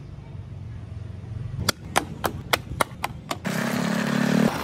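About seven sharp clicks roughly a third of a second apart, then a loud motor starts running about three and a half seconds in.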